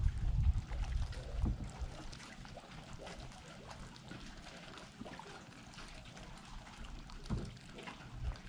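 Water lapping and trickling softly against a kayak hull, with small ticks and splashes. Low rumbles come in near the start and again about seven seconds in.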